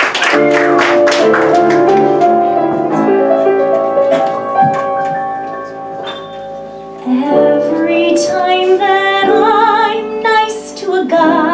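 Piano playing a show-tune introduction, then about seven seconds in a woman starts singing over it with a clear vibrato on the held notes.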